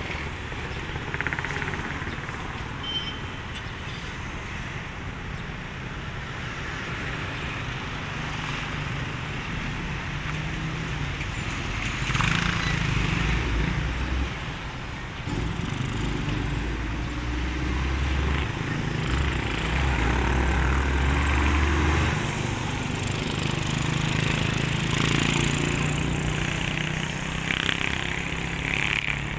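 Highway traffic: heavy cargo trucks and cars passing, with the low drone of diesel engines under road noise. It grows louder from about twelve seconds in and stays loud through most of the rest.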